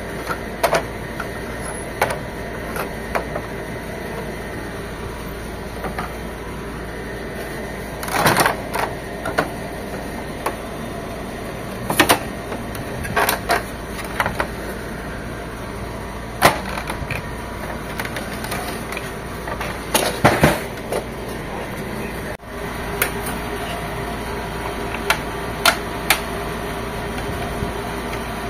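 Scattered clicks and knocks, as of the plastic casing and parts of an HP Officejet 7612 inkjet printer being handled, over a steady hum. The hum shifts slightly after a sudden break about two-thirds of the way through.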